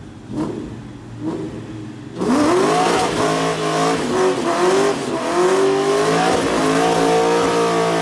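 Ford Mustang engine blipped in three short revs, then held at high revs from about two seconds in, its pitch wavering up and down as the rear tyres spin in a burnout.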